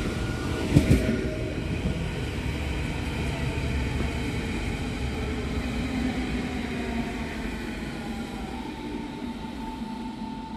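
DB Regio class 442 electric train passing and pulling away: a few wheel knocks over rail joints in the first second, then its rolling rumble fading steadily as it leaves. A faint whine rises slightly in pitch near the end.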